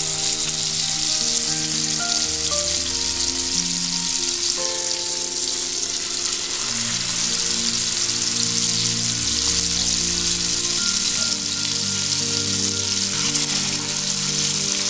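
Soya chunk cutlets sizzling steadily as they shallow-fry in hot refined oil in a pan, with instrumental background music of held notes underneath.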